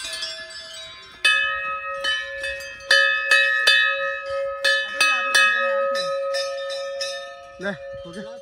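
A metal temple bell hanging from a gateway, struck again and again by hand: about ten strikes starting a second or so in, each ringing on into the next.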